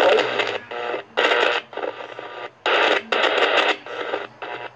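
Car MP3 stereo's AM radio being tuned through the band, playing short choppy bursts of broadcast audio and static that cut in and out as it steps from station to station.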